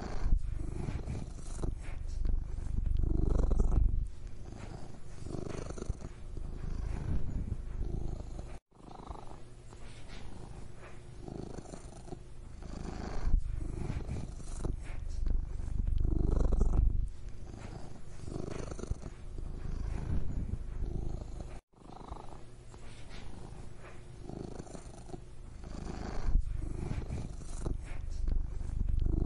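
Domestic cat purring, a continuous low rumble that swells and fades in slow cycles as the cat breathes in and out. It cuts out for an instant twice, about a third and about three quarters of the way through.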